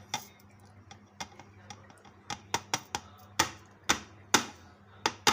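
A run of sharp taps and clicks, sparse at first and coming faster from about two seconds in: spoons and small spice bowls knocking against a blender jar as ground spices are tipped in.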